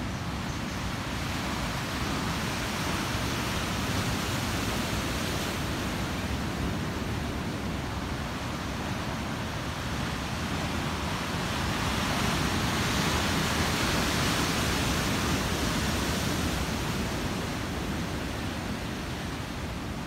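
Ocean surf breaking and washing over rocks below a cliff: a steady rush of noise that swells louder about twelve seconds in and eases off again, with a low rumble of wind on the microphone.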